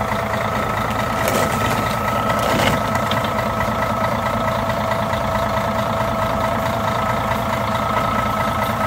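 A large engine idling steadily, with a constant whine riding over the low rumble. Two brief scrapes sound in the first three seconds.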